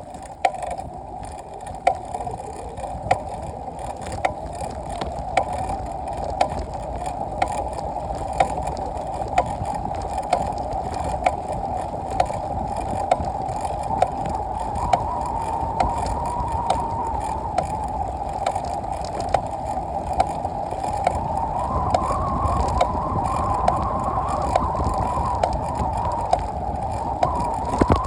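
A steady mechanical whine over a low rumble, with a sharp click repeating about once a second and gradually quickening, as from a rotating part; the whine rises a little in pitch partway through.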